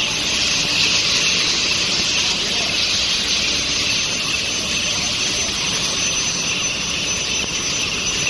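Steel bar induction hardening and tempering line running: a loud, steady hiss with a thin, steady high-pitched tone over it, holding even throughout.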